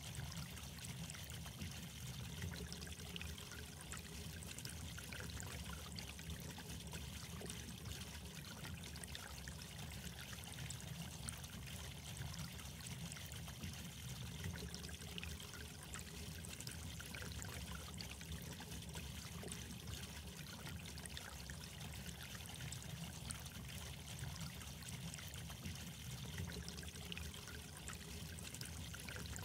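Water trickling steadily, with a low rumble underneath.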